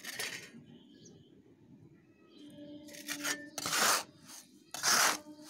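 Hands scraping and mixing a gritty potting mix of soil, crushed brick chips and sand on a concrete floor: a rough scrape at the start, then three more in the second half, the last two loudest.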